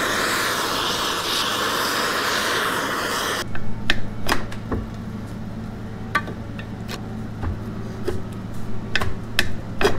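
A handheld gas torch hisses steadily as it heats a seized, rusted strut retaining nut, then cuts off about three and a half seconds in. After that, big channel-lock pliers click and knock as they grip and slip on the nut, over a low steady hum.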